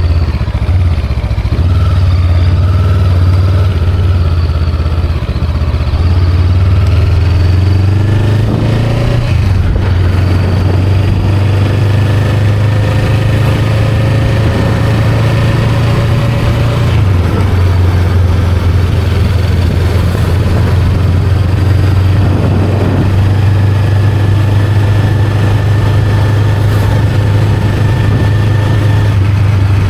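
Honda Rebel 500's 471 cc parallel-twin engine running while riding, a steady low drone with the revs rising briefly about nine seconds in and again about twenty-two seconds in.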